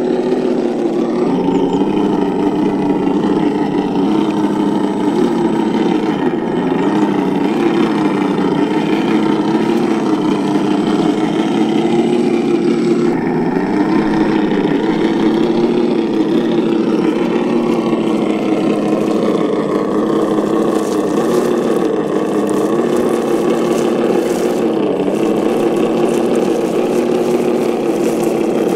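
Steady engine-like drone that wavers slightly in pitch, like an engine idling and revving gently. It runs on without a break.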